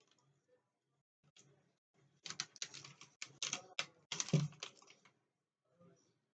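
Thin black plastic insulating sheet on a laptop motherboard crackling and clicking as it is peeled and worked off the board, a quick run of clicks over about three seconds with a dull knock a little past four seconds in.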